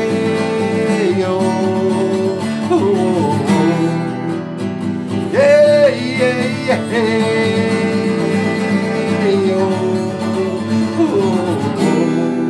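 A man singing held notes over a strummed acoustic guitar, with a higher, louder sung phrase about halfway through. Near the end the voice stops and only the guitar strumming goes on.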